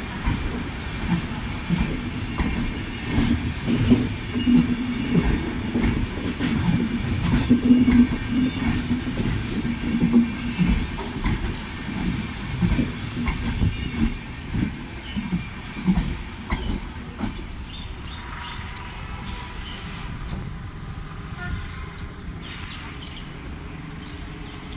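Passenger coaches of an express train rolling past on the rails, their wheels rumbling and knocking over the track. The sound fades about two-thirds of the way through as the last coach draws away.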